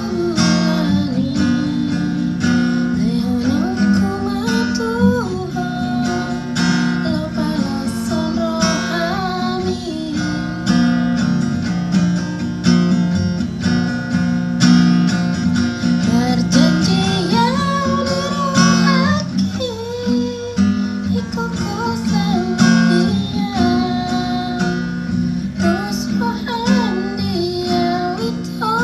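Strummed acoustic guitar accompanying a woman singing a Batak song, her voice worn by a cough and cold.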